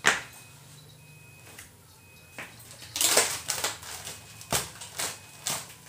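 A sharp knock, then from about three seconds in a thin plastic bag being shaken open and crinkled in several short bursts as cotton candy is bagged.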